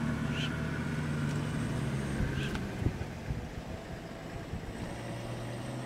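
Vehicle engine idling with a steady low hum that fades out about halfway through and comes back a little lower near the end. Two short high chirps and a single sharp knock sound over it.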